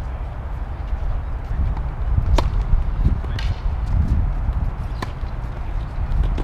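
Tennis balls being struck with rackets: a few sharp pops, the loudest about two and a half seconds in. A steady low rumble lies underneath.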